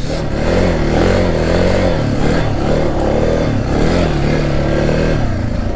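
Suzuki DR650's single-cylinder engine being ridden hard, its pitch rising and falling about once a second as the throttle is opened and eased.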